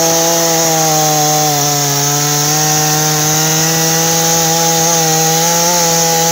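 New Stihl MS170 two-stroke chainsaw at full throttle, cutting through a log. The engine note sags slightly about a second in as the chain bites, then holds steady.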